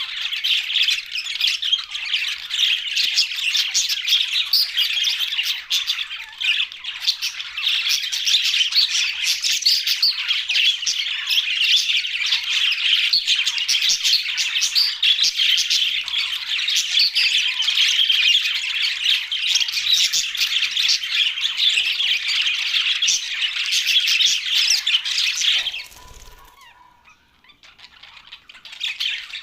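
A flock of budgerigars chattering and squawking in a dense, continuous din. A little before the end the chatter breaks off suddenly to faint sound for a few seconds, then starts up again.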